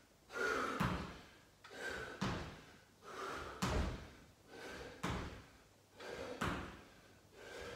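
A person doing jump squats: a hard breath and then the thud of feet landing on a rubber gym floor, repeated about every one and a half seconds, five times.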